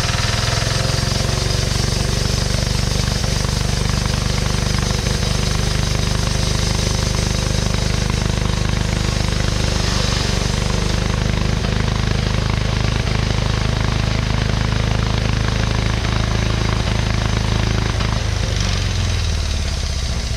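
Wood-Mizer LT15 portable sawmill's engine running steadily at speed. It starts to wind down near the end.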